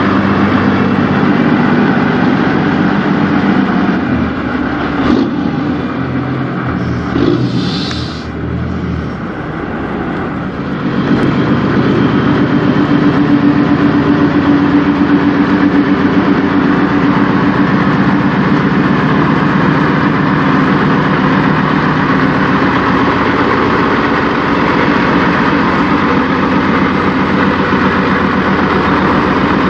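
Peterbilt semi truck's diesel engine running as the truck creeps in, then idling steadily. There is a brief hiss about a quarter of the way through.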